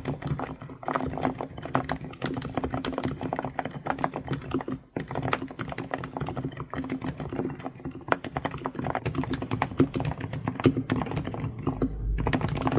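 Typing on an Aula (독거미) full-size mechanical keyboard with silent linear 바다축 (sea) switches, 43 g actuation and 55 g bottom-out: a fast, continuous run of muted, bubbly keystrokes with a brief pause a little before halfway.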